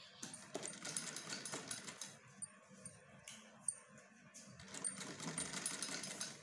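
Mechanical domestic sewing machine stitching through folded cotton fabric: a fast, even clatter of needle and feed in two runs, the second starting after a pause of about two seconds.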